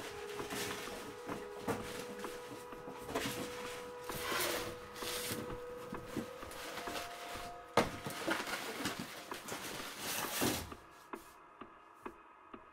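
Rummaging through cardboard boxes: rustling and clattering of objects, with a sharp knock about two-thirds of the way in, over a faint sustained tone. Near the end the rummaging stops and a steady ticking sets in, about two ticks a second.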